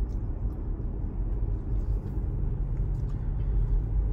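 Steady low rumble of road and engine noise inside a moving car's cabin, heard while driving at highway speed.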